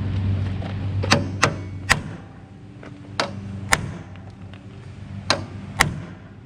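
Two-pound hammer striking steel, driving the last ground-off rivet out of a control-arm ball joint: seven sharp blows in groups of two or three, about half a second apart.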